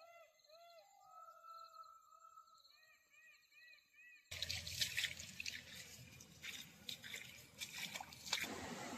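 A bird calling with a series of short, arched whistled notes over faint insects. About four seconds in it cuts abruptly to running water trickling and dripping, with many small splashes.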